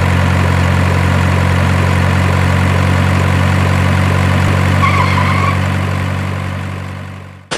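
Heavy truck diesel engine idling steadily, fading out near the end.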